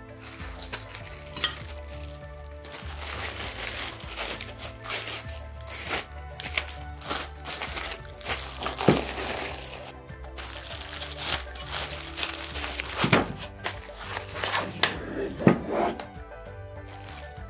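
Background music with handling noises over it: the wrappings of an iron griddle plate and its cloth bag rustling, and a few sharp knocks of metal on a stainless tray.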